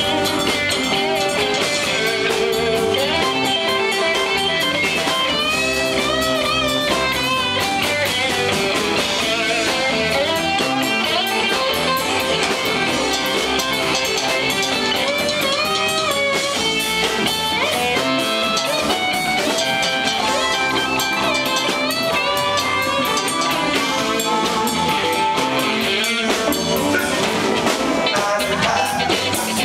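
Live blues band playing an instrumental passage without vocals: an electric guitar plays lead lines with bent notes over bass and drums.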